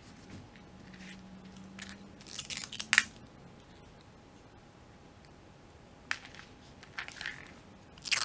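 Paper rustling and crinkling as sheets and rolled paper tubes are handled, loudest about two to three seconds in. Near the end, clear adhesive tape is pulled off a desk dispenser and torn off.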